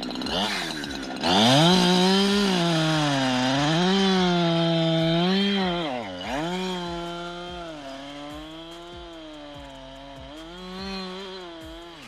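Two-stroke chainsaw running at high revs in an oak log, its pitch rising and falling several times as it is throttled and loaded in the cut. It is loud for the first half, drops off about six seconds in, then runs quieter with one more brief rise near the end.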